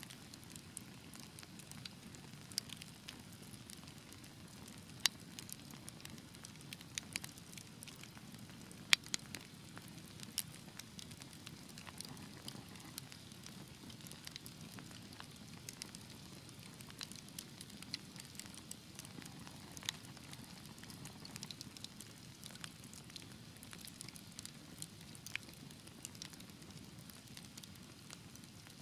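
Wood fire burning in a fireplace: a soft steady hiss of flames with scattered sharp crackles and pops, two louder pops about five and nine seconds in.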